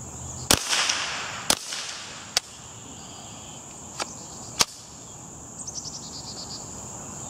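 Ruger 10/22 .22 rimfire rifle with an AAC suppressor firing: three sharp cracks about a second apart near the start, the first two ringing briefly, then a weaker crack and a loud one around four seconds in. The shots are louder than the shooter expected of the suppressor, which he thinks may not be tightened on enough. Insects buzz steadily underneath.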